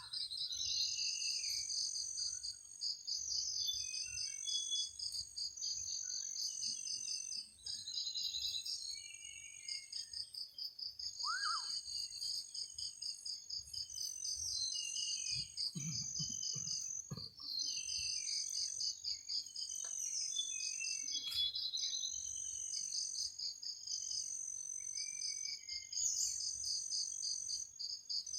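Night-time forest insect chorus: crickets trilling in high-pitched, pulsed runs, over and over, with short bird chirps underneath. A rising-and-falling call is heard twice, at the very start and about 11 seconds in, and a brief low thump comes around the 16-second mark.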